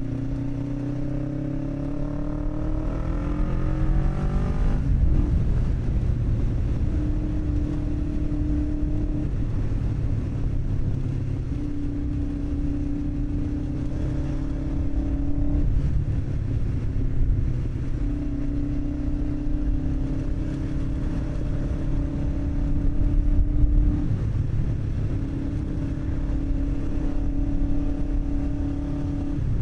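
Kawasaki ER-5 500 cc parallel-twin motorcycle engine under way: the engine note climbs as the bike accelerates, drops at a gear change about five seconds in, then holds steady cruising notes that fall away and return several times, over heavy wind rush.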